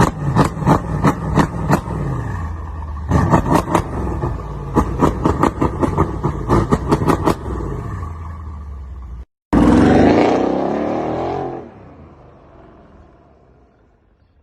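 Mercedes-AMG CLS63's V8 exhaust revved in two runs of rapid sharp blips, about four or five a second. After a short break comes one longer, louder rev that dies away to quiet near the end.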